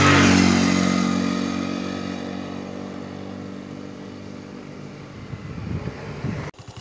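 A motorcycle engine passes close by, its pitch dropping as it goes, and fades away. Near the end another engine draws nearer before the sound cuts off abruptly.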